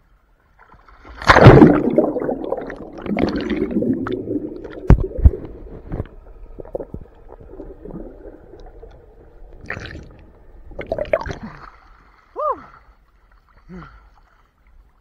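Action camera plunging into lake water with a loud splash, then muffled underwater gurgling and bubbling, with a couple of sharp knocks about five seconds in. Near the end, as it comes up, a few brief falling tones.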